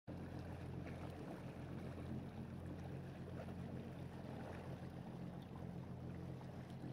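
Motorboat engine running steadily, a low even drone, with water and wind noise around it.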